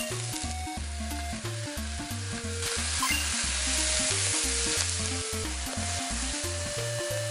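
Bacon and onions sizzling in a hot frying pan while being stir-fried, the sizzle growing louder about two and a half seconds in. Background music with a bass line plays underneath.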